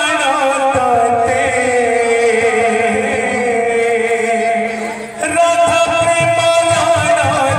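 Odia kirtan singing: a male voice chanting long, wavering held notes through a sound system, dipping briefly about five seconds in before the music picks up again.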